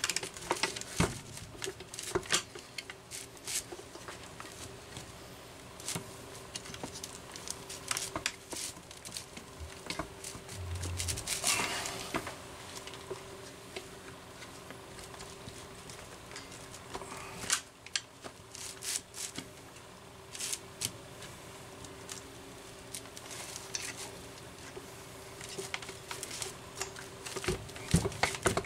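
Irregular clicks, taps and scrapes of hands and a T-handle hex wrench working on a Homelite 330 chainsaw's plastic housing and small parts, with a rustle about halfway through, over a steady faint hum.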